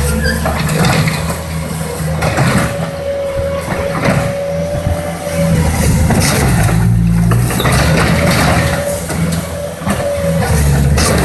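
Bobcat compact track loader's diesel engine running hard as its bucket pushes against a palm trunk to uproot it. A steady whine rises over the engine twice, for a few seconds each time.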